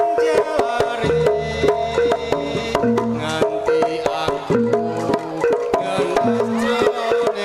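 Javanese jaranan gamelan music played live: hand drums (kendang) beat a quick, busy rhythm under a melody of stepping notes on tuned percussion.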